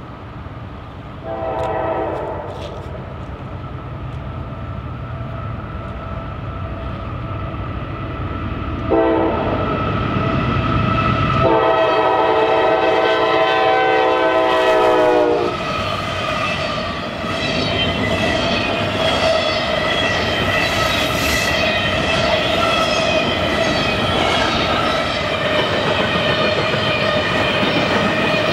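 Locomotive air horn on an approaching train: a short toot, then a long blast held for several seconds over the rumble of the engine. The train then passes close, loud rail and wheel noise with a steady ringing tone on top.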